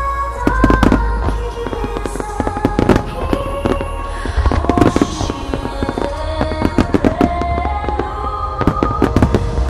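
A massed fireworks barrage: many shells and starmine rockets bursting in rapid, overlapping cracks and booms, with heavy clusters about half a second in and again near five seconds. Music with a slow, sustained melody plays underneath.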